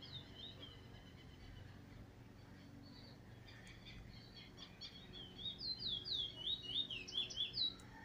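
Caged bullfinch singing: a few short down-slurred whistles at the start, then from about five seconds in a fast, loud run of falling whistled notes.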